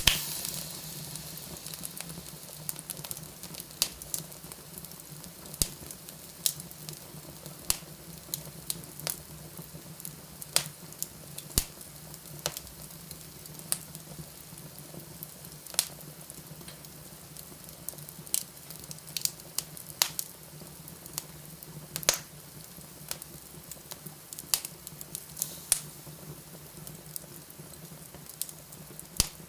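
Wood fire burning in a fireplace: a steady hiss with frequent sharp, irregular crackles and pops, the loudest pop right at the start.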